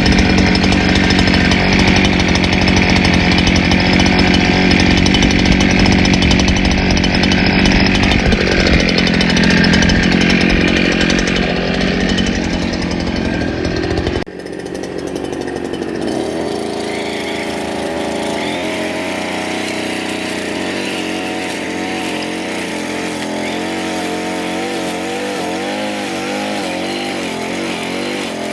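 Handheld brush cutter engine running at high speed while cutting grass, with a steady, loud note. About halfway through it drops abruptly to a quieter engine note that rises and falls in pitch.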